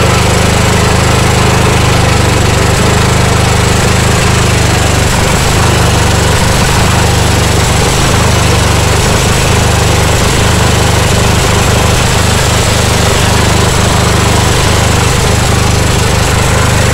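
Craftsman LT1000 lawn tractor's Briggs & Stratton V-twin engine running steadily and loudly just after being started, with no change in speed.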